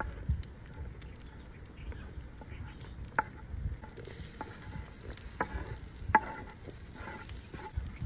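Sliced bell peppers dropping into a hot metal pot of frying vegetables, with a soft sizzle. A few sharp knocks ring briefly off the pot, the loudest about six seconds in.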